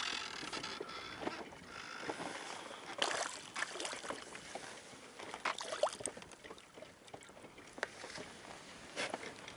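Zander being lifted by hand out of the water into a small boat: scattered knocks and handling noises against the boat.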